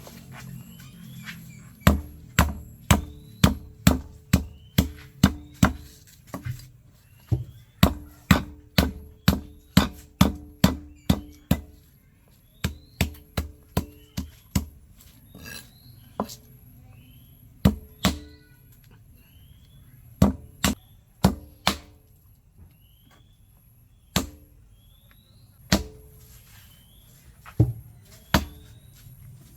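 Knife chopping food on a cutting board: sharp thudding strikes about two a second in steady runs, then a few scattered strikes in the second half.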